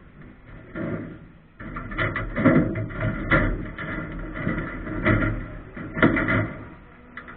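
Irregular knocks and bangs inside a ministock race car's cockpit, over a low steady drone from the car that comes in about a second and a half in.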